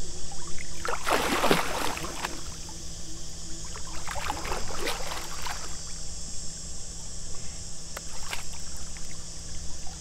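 Water splashing and sloshing in two main bursts, about one second in and about four seconds in, as a large fish and a wading angler move about in a landing net in shallow lake water. A steady high insect drone runs underneath.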